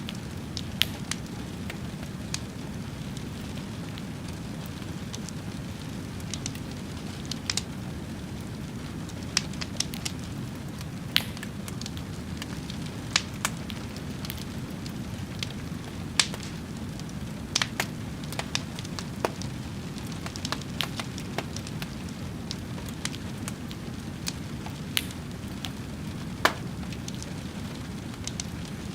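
A fire burning with a steady low rumble and frequent irregular sharp crackles and pops.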